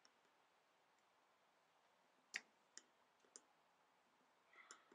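A few faint, sharp metal clicks, the loudest about halfway through, from a screwdriver working against a Zenith 24-T2 carburettor body as its gasket is eased down flat.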